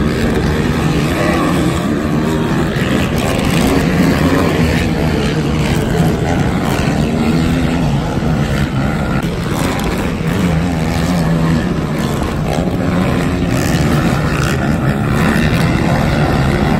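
Racing ATV engines revving hard, their pitch rising and falling continually with throttle and gear changes, with more than one engine heard at once.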